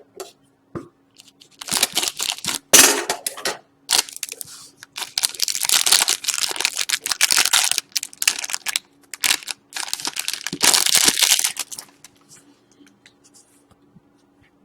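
Plastic wrapping on a box of hockey trading cards being torn and crinkled open by hand, in several bursts of rustling, then a few faint handling ticks.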